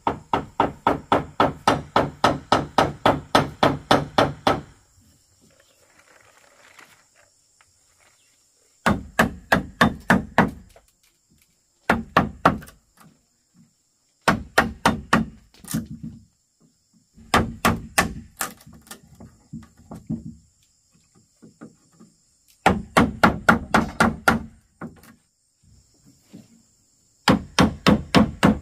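A tool striking bamboo in rapid, evenly spaced blows, about four or five a second, in runs of two to five seconds broken by short pauses.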